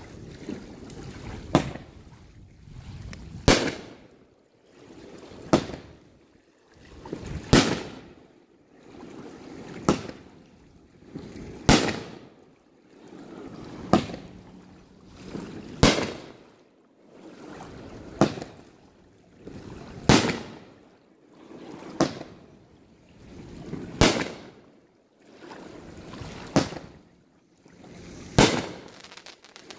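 Aerial fireworks firing in a steady series, one shot about every two seconds, each a short rising hiss ending in a sharp bang, about fourteen in all.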